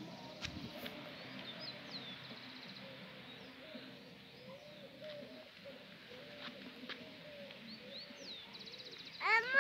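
Birds calling: scattered high chirps and short trills over a low, repeating, wavering call. Just before the end a much louder short pitched call rises and falls.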